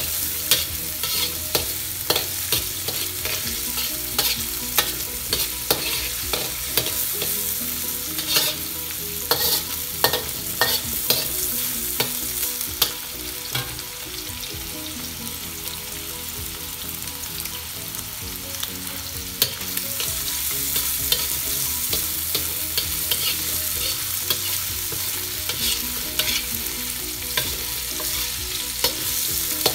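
Chopped prawns and vegetables sizzling in hot oil in a wok while a metal spatula scrapes and clinks against the pan as they are stir-fried. The scraping eases off for several seconds around the middle, leaving mostly the sizzle.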